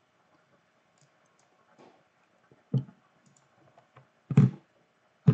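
Sparse clicks and knocks from a computer mouse and keyboard at a desk, a few isolated strokes, the loudest a little over four seconds in and another at the very end.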